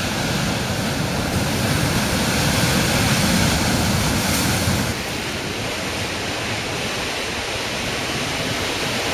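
Ocean surf breaking against shoreline rocks: a loud, steady rush of water and spray. It is heavier and deeper for the first five seconds, then a little quieter and more even.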